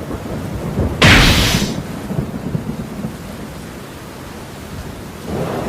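Steady rain of a thunderstorm, with a sharp clap of thunder about a second in that rumbles off over the next second.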